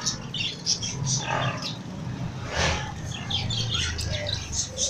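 Many caged birds chirping and squawking, with short high chirps overlapping throughout and one louder squawk about two and a half seconds in, over a low murmur.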